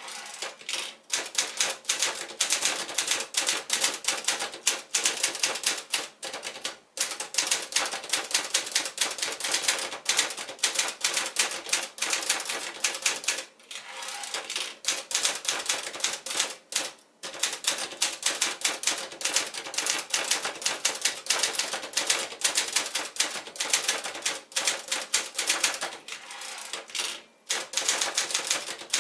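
Manual portable typewriter, a 1976 Sears Manual 2 built on Brother's JP-5 design, being typed on: a fast, steady run of keystrokes with a few short pauses.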